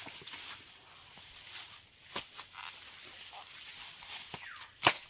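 Rustling of dry grass and leaves with a few sharp clicks or snaps, the loudest one just before the end.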